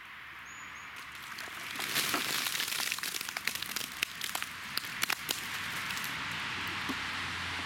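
Wet mud tipped from a bucket over a person's hooded head, splattering with a dense run of wet crackles and splats from about two seconds in, settling to a softer hiss near the end.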